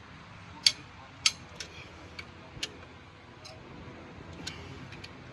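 Ratchet wrench and socket on the cylinder head bolts of a Suzuki Cultus engine: about ten sharp metal clicks at uneven intervals, the two strongest close together about a second in.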